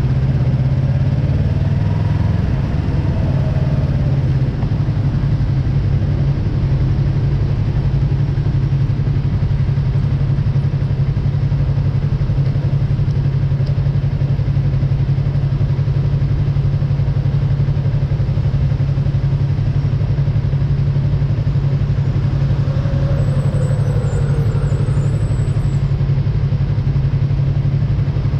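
Yamaha MT-03 motorcycle engine idling steadily, with other vehicles passing by, one near the start and one about 23 seconds in.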